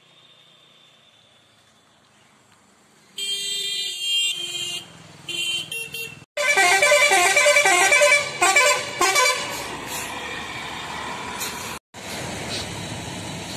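Vehicle horns honking on a busy road. After a faint start there are two short horn blasts, then a louder horn sounding a quick repeating multi-note pattern for about three seconds, then steady traffic noise. The sound drops out abruptly twice.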